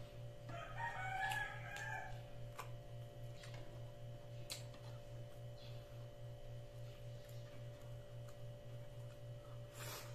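A rooster crows once, for about a second and a half, shortly after the start. Under it runs a steady, pulsing low hum, and short clicks and smacks from eating by hand come every second or two, the sharpest near the end.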